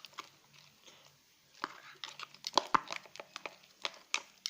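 Homemade slime mixture being stirred with a stirrer, giving scattered sticky clicks and wet snaps that come faster in the second half. The slime is thickening after a spoonful of slime activator.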